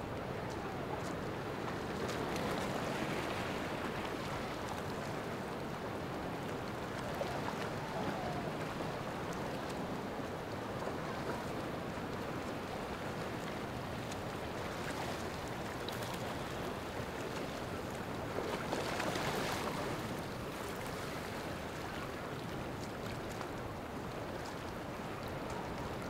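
Ocean surf washing onto the beach: a steady rush of water that swells louder twice, a couple of seconds in and again about three-quarters of the way through.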